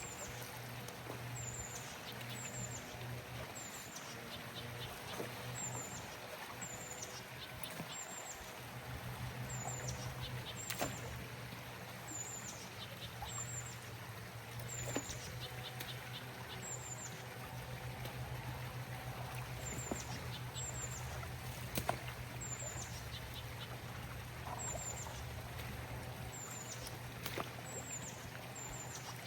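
A bird giving a short, high, downward chirp over and over, about once a second, over a steady low hum that grows stronger about eight seconds in.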